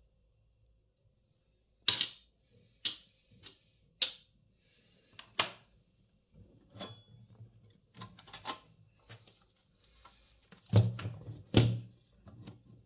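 Clicks and clatter of a Power Mac G4 power supply's casing being worked apart by hand: four sharp clicks in the first half, then scattered light rattling and a louder clatter near the end.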